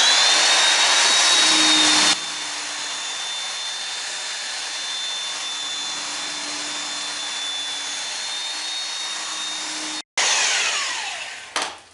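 Belt sander spinning up with a rising whine, then running steadily as it sands down the uneven plywood edges at the end of the hull; near the end it winds down with a falling whine.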